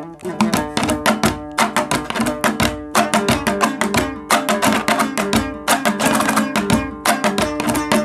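Hazara dambura, a two-string long-necked lute, strummed in a fast, even rhythm in Laghmani style, with held notes ringing under the strokes in an instrumental passage without singing.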